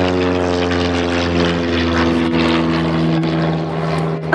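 Small single-engine propeller plane flying low overhead, its engine drone slowly dropping in pitch as it passes and moves away.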